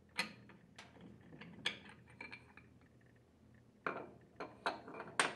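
Light clinks and taps of a mechanical seal seat being pushed out of a gear pump's bracket with a plastic rod and handled on the workbench. A few clicks in the first two seconds, a short pause, then another group near the end.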